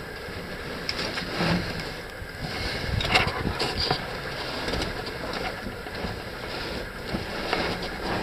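A caver's suit scraping and rustling against rock while he squeezes through a tight passage, with scattered knocks and scrapes over a steady hiss.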